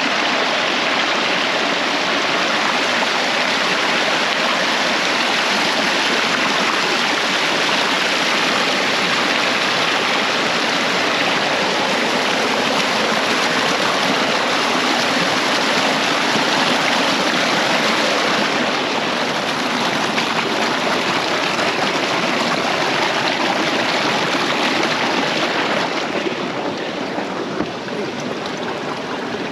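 Waterfall, a steady loud rush of falling and splashing water, growing slightly quieter near the end.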